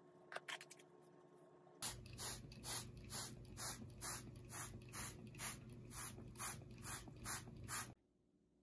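Plastic trigger spray bottle misting water over potting soil: about fourteen quick squirts at a steady rhythm of roughly two a second, which stop suddenly.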